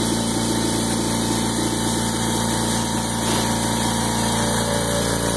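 Husky 4.6-gallon Silent Flow dual-tank air compressor running steadily, its motor and pump giving an even hum that is not too loud.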